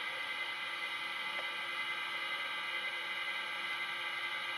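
Steady hiss with a faint many-toned hum and no rhythm or change: the standing noise of a model electric locomotive's sound decoder playing through its small loudspeaker.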